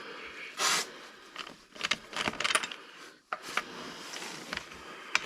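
Metal wrench and socket being worked on car lug nuts: scattered sharp clicks and scrapes. There is a short scraping rush under a second in and a quick cluster of clicks around two seconds in.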